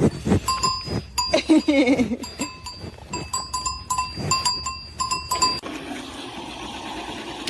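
A bell clangs again and again, about twice a second, for some five seconds and then stops. Over it, a wavering bleat-like animal call comes once, a little over a second in.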